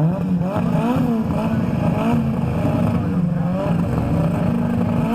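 Rally car engine revving up and down in quick repeated throttle bursts, about two a second.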